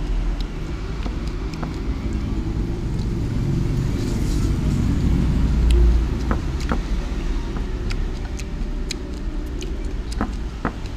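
Low rumble of passing road traffic, swelling to a peak about five to six seconds in, with scattered light clicks of wooden chopsticks on a ceramic plate.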